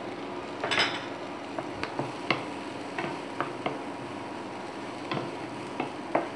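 Spatula stirring vegetables in a non-stick frying pan: irregular knocks and scrapes against the pan, the loudest just under a second in, over a steady low sizzle of frying.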